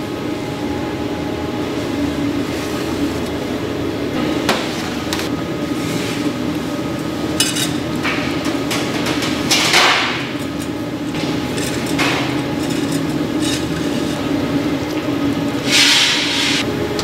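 Scattered sharp knocks on a hard surface over a steady machine hum, with two short bursts of hiss, one about ten seconds in and one near the end.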